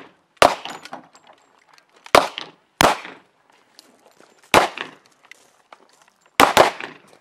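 Semi-automatic pistol shots: six shots at uneven intervals, the last two fired in quick succession.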